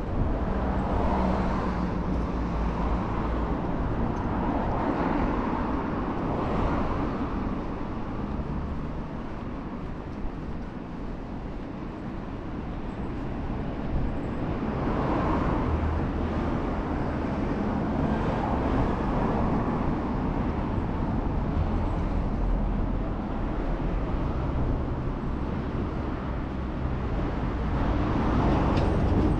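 Road traffic: cars passing one after another, the noise swelling and fading several times over a steady outdoor rumble.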